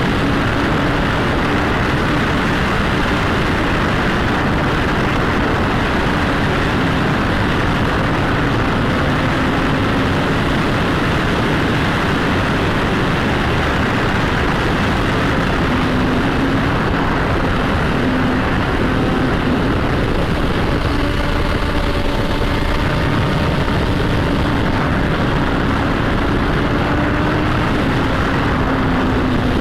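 Motorcycle exhaust droning at a steady cruising pace, mixed with heavy wind rush on the microphone. The engine note holds nearly constant, dipping slightly a few times.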